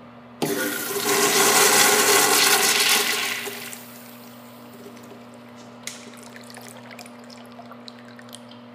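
Crane Plumbing urinal flushing from its flush valve: a sudden rush of water starts about half a second in, stays loud for about three seconds and dies away, followed by a few scattered drips into the bowl.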